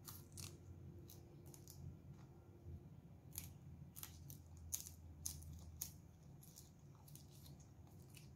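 Close-up chewing of crisp raw leafy greens: irregular crunchy clicks, the loudest about halfway through.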